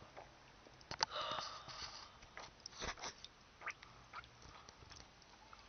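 Faint handling noise: scattered clicks and rustles as small plastic toy figures are moved by hand, with a small cluster about a second in and a sharper tap near the middle.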